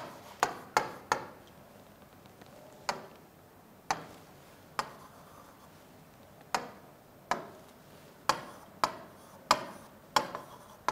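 Pen tip tapping and clicking against the writing board as words and an arrow are written by hand: a series of sharp, irregular taps, sparse in the middle and coming faster near the end.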